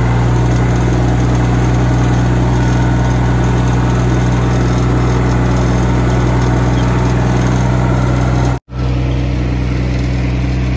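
Farm tractor engine running steadily while driving across a field, a constant low drone heard close up. The sound drops out for an instant about eight and a half seconds in, at an edit, and then carries on the same.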